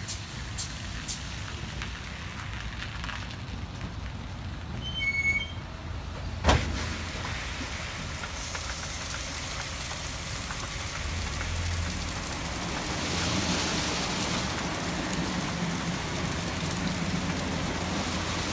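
Automatic rollover car wash running: water spray hissing onto a car and large rotating brushes sweeping it, with the gantry's motors humming underneath. One sharp knock about six and a half seconds in.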